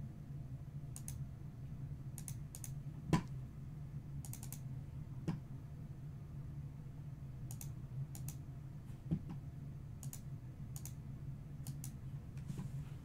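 Typing and clicking on a computer keyboard: scattered light key taps in small clusters, with a few sharper clicks, over a steady low hum.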